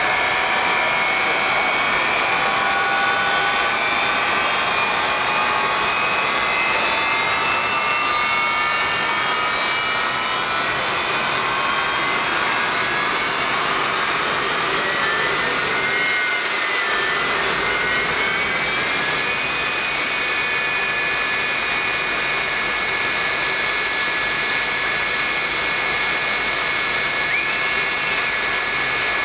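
Jet engine of the Bone Shaker jet semi truck running with a loud rushing roar. Its turbine whine climbs slowly in pitch for about twenty seconds, dips briefly, then holds steady at a high pitch.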